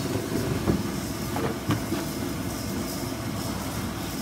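Steady low machine hum at a linear vibration welder, with two short knocks about a second apart as a large plastic part is handled in its fixture.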